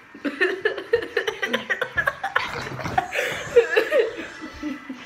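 Children laughing: a quick run of chuckles starting a moment in, then looser giggling.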